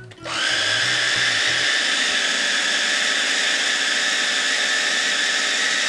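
Electric mini food chopper running steadily with a whine, chopping onion, garlic and parsley; the motor starts about a third of a second in.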